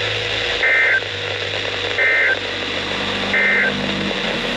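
Emergency Alert System end-of-message signal: three short identical bursts of SAME data tones, about 1.3 s apart, marking the end of the alert. Heard over a radio receiver with a steady static hiss.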